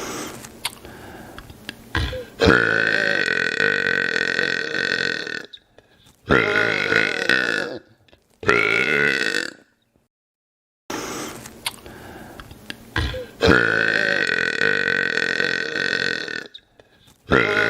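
A man belching loudly in long, drawn-out burps, several in a row, each lasting one to three seconds. After a short silence about two-thirds of the way through, the run of burps starts again.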